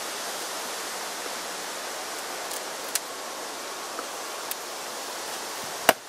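Steady hiss with a few light clicks and one sharp, louder click near the end, from a beekeeper working a bee smoker and metal hive tool while smoking the hive.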